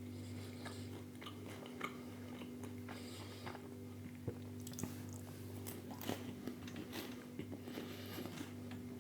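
A person chewing a wafer biscuit: small, irregular crisp crunches in the mouth, with a steady low hum underneath.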